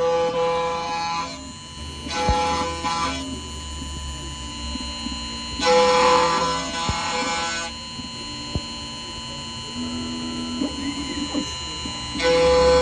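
CNC key-cutting machine running, a steady motor whine with several louder stretches of cutting noise as the cutter works the key blank.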